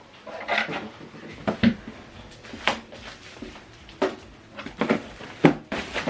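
Handling noise from unboxing: a string of irregular knocks and taps with light rustling as the subwoofer and packaging are moved about by hand.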